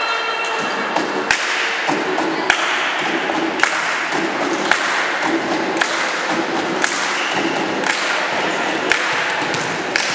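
Spectators in a sports hall chanting, with a steady thump about once a second as a beat under the chant.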